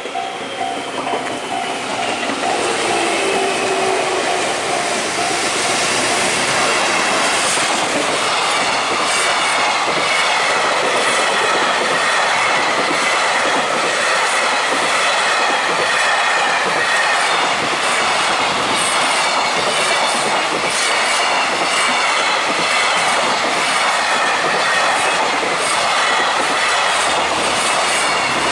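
A JR Freight container train passing close by at a level crossing: the wagons' steel wheels clatter rhythmically over the rail joints with a wavering high wheel squeal. For the first few seconds the crossing's warning bell rings in quick repeats before the train noise drowns it out.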